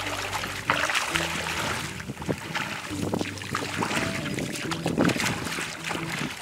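Background music with held low notes changing every second or two, over irregular splashing water.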